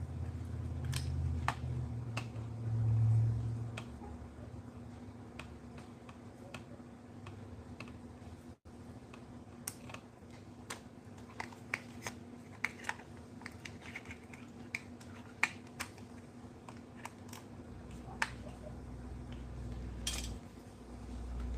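Scattered light clicks and taps of small plastic parts on an RC drift car being handled and worked on, over a low steady hum.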